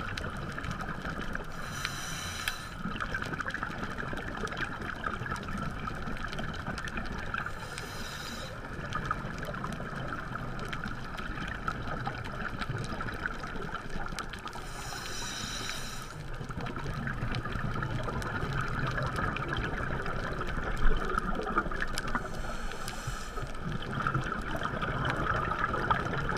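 Underwater sound picked up by a diver's camera: a steady muffled hiss and rumble, broken about every six to eight seconds by a brief higher hiss of scuba regulator breathing.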